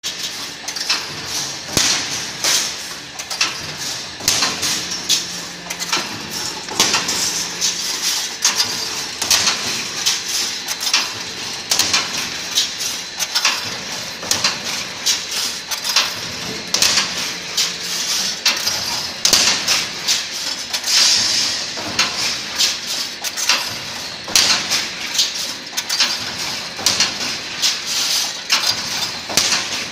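Automatic welded wire mesh machine running, a steady, uneven metallic clatter of sharp clicks and clanks from its wire-feed and welding mechanism as it welds the cross wires into mesh.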